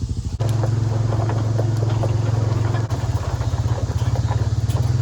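A car engine running at a steady speed, with a pulsing hum and small rattles and clicks over it. The sound changes abruptly twice, about half a second in and again near three seconds.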